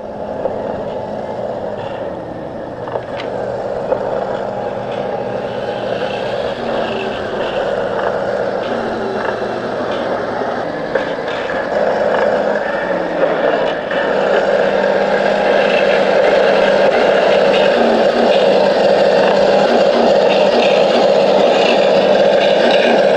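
A small motor running with a steady whir that slowly grows a little louder.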